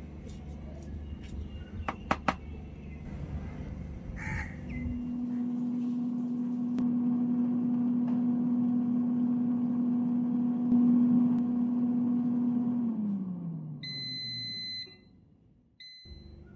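A few sharp clicks early on, then a Havells air fryer's fan running with a steady hum that winds down, falling in pitch as the fryer shuts off. It gives an electronic beep about a second long, then a short second beep.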